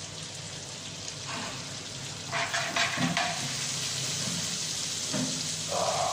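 Melted butter sizzling steadily in a frying pan, with a spatula stirring and scraping through it in a few short spells.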